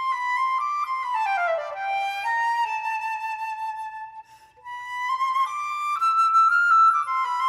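Unaccompanied concert flute playing a slow, chant-like melody: a falling run of notes, a long held note, a short break for breath about four seconds in, then a new phrase climbing upward.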